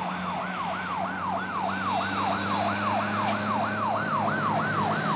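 Police escort siren on a fast yelp, its pitch sweeping up and down about three times a second, over a steady low engine drone.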